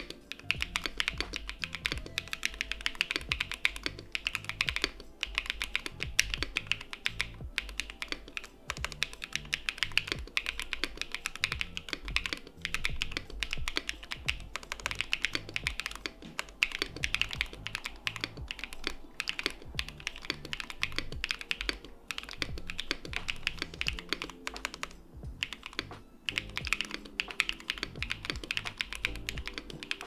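Fast, continuous typing on a Fuji65 mechanical keyboard: hand-lubed JWK Balance switches on an aluminum half-plate, PBT keycaps and no foam, giving a dense stream of key clacks. Background music plays underneath.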